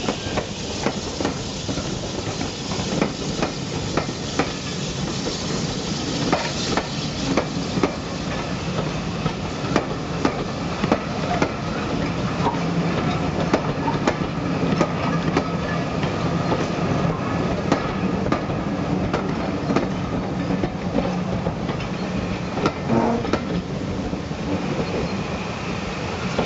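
Steam-hauled passenger train passing close by: BR Standard Class 4 2-6-0 locomotive No 76079 followed by its coaches rolling past at low speed, a steady rumble with many sharp clicks of wheels over the rail joints.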